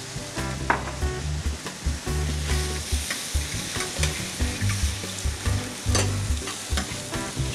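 Mushrooms frying and sizzling in a hot stainless steel pot while a metal ladle stirs them, with repeated clicks and scrapes of the ladle against the pot.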